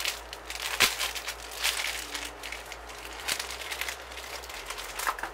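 Packaging of a makeup brush set crinkling and crackling in irregular bursts as it is handled and opened, with a sharper crackle about a second in.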